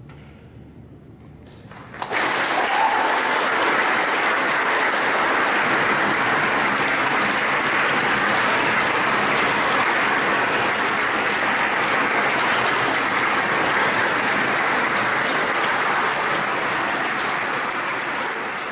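Audience applause at the end of a string orchestra piece: a brief hush, then clapping breaks out suddenly about two seconds in and goes on steadily.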